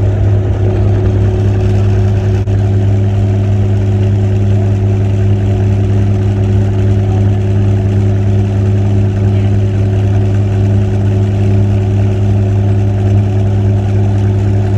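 Helicopter cabin noise in flight: a loud, steady drone of engine and rotor that holds an unchanging pitch throughout.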